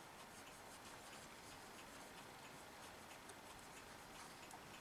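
Near silence, with the faint scratchy rubbing of a cotton swab wiping a pulley clean and a few faint small ticks.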